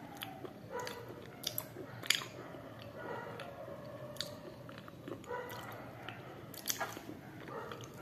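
Close-miked chewing of a thick, dry white food, with sharp crunching bites about a second in, twice around one and a half to two seconds, and again near four and near seven seconds.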